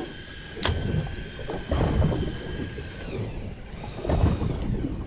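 Low rumbling gusts and thumps, wind buffeting the microphone and water knocking against the inflatable boat's hull, with a sharp click just under a second in. A faint steady whine sounds under it for the first three seconds.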